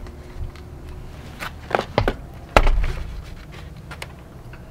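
Handling noise in a small room: a few knocks and bumps, the loudest with a low thump about two and a half seconds in, as a boxed digital wall clock is picked up and moved.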